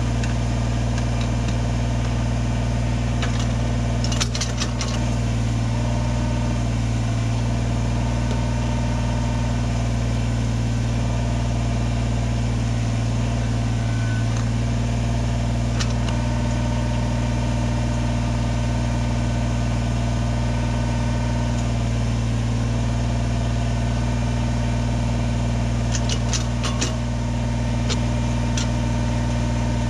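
Diesel engine of a compact loader running steadily at constant speed. A few sharp knocks come about four seconds in and again near the end.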